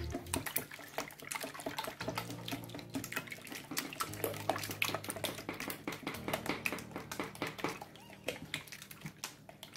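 Eggs being beaten by hand in a plastic mixing bowl: quick, uneven sloshing and clicking of the liquid and the whisk against the bowl. Low background music plays underneath.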